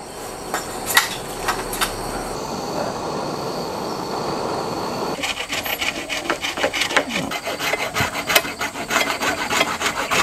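A blade cutting and scraping a green bamboo pole in quick rasping strokes, starting about halfway through, after a steady hiss.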